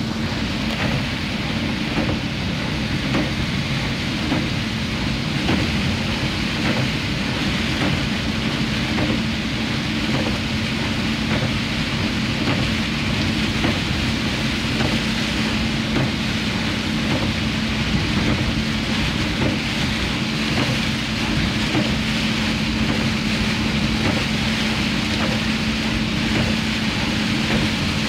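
A vehicle driving through rain: a steady engine hum under a constant hiss of rain and tyres on the wet road.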